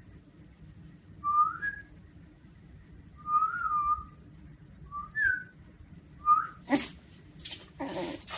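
A person whistling a series of short single notes, about five, most of them sliding upward in pitch and one rising and falling, spaced a second or two apart. Near the end come a couple of short noisy bursts.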